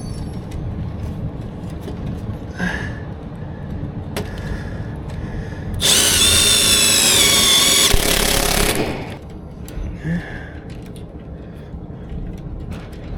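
A power drill runs in one burst of about three seconds, its high whine wavering slightly in pitch, over a steady low rumble.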